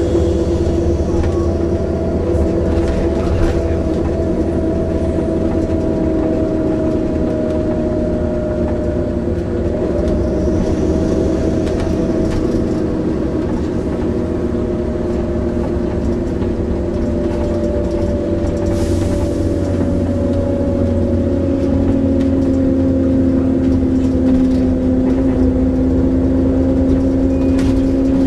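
Volvo Olympian double-decker bus with a ZF automatic gearbox running, its engine and transmission giving steady whining tones whose pitch drifts slowly. A lower steady whine comes in about three quarters of the way through.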